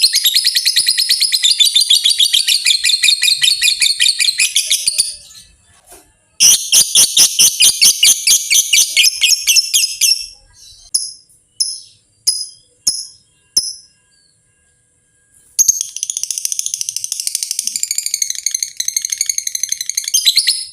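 Lovebird ngekek: long runs of fast, rattling, shrill chatter, three of them lasting several seconds each. Between the second and third run come about six separate sharp chirps.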